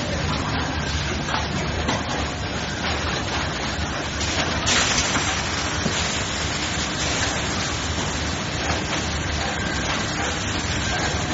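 Kitchen towel paper production line running: a steady, dense mechanical rush with faint irregular clicks, and a brief louder hiss about four and a half seconds in.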